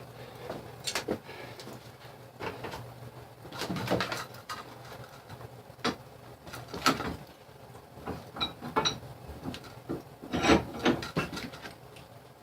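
Scattered light knocks and clatters at irregular intervals, a few close together about four, seven and ten seconds in, typical of metal tools and stock being handled at a forge.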